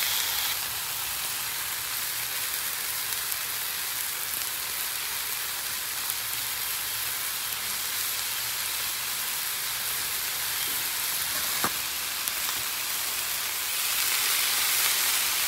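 Broccolini and chicken breasts sizzling steadily on an oiled flat-top griddle. The sizzle grows louder near the end as lemon juice is squeezed onto the hot surface, and there is a single light click shortly before that.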